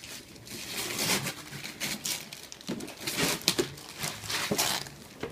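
Gift-wrapping paper being torn and crinkled off a cardboard toy box as a present is unwrapped, a run of irregular rips and rustles.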